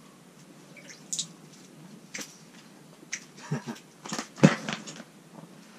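A zipper being worked among scattered sharp clicks and rustling, with a busier stretch of rasping and knocks from about three and a half seconds in. The loudest thing is a single thump about four and a half seconds in.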